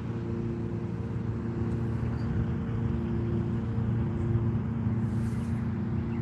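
A steady low engine drone over a rumble, its humming tones fading out about four seconds in.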